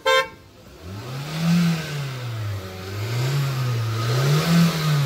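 A car horn toots once briefly, then a Hyundai sedan's engine is revved three times, its note rising and falling smoothly each time.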